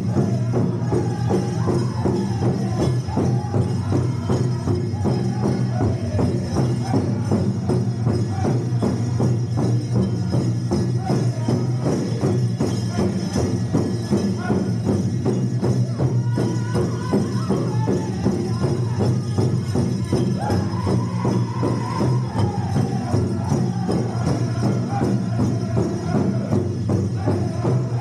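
Powwow drum group singing over the steady, even beat of a big drum, the voices carrying a wavering melody line through the whole stretch.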